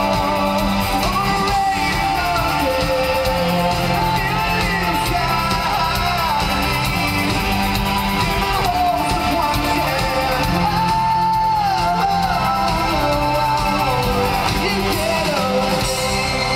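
Live rock band playing electric guitars, bass and drums, with a voice singing over the music. It is loud and recorded from within the crowd.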